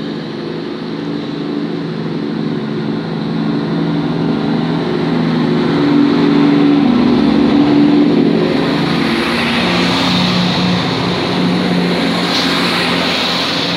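Greater Anglia Class 170 Turbostar diesel multiple unit pulling away and accelerating past, its underfloor diesel engines working under power and growing louder toward the middle. In the later seconds a hiss of wheels on rail rises as the coaches go by.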